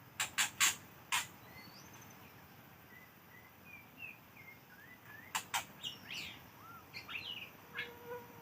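Birds calling: short whistled chirps and quick up-and-down gliding notes. Loud sharp clicks are the loudest sounds, four in quick succession about a second in and two more about halfway through.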